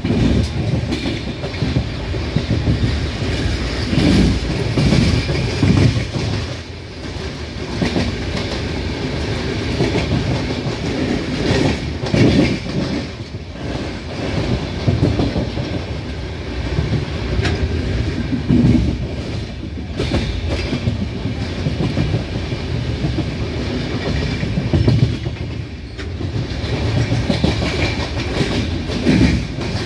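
Wheels of an Indian Railways LHB passenger coach running at speed over the rails, heard through an open window: a steady rumble broken by repeated clusters of wheel beats over rail joints. A goods train's wagons pass close alongside on the next track.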